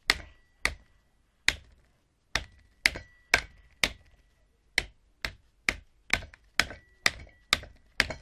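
Hammer blows on metal, about fifteen strikes at roughly two a second, each with a short metallic ring. The hammer is knocking apart a washing-machine electric motor.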